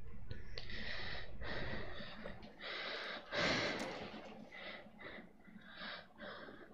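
A girl's breathing into a close headset microphone in a pause between phrases of a melodic Quran recitation: a series of short, hissing breaths, the loudest about three and a half seconds in, then fainter ones toward the end.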